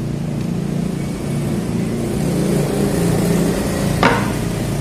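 A steady low mechanical hum, engine-like, swelling slightly toward the middle, with one sharp click about four seconds in.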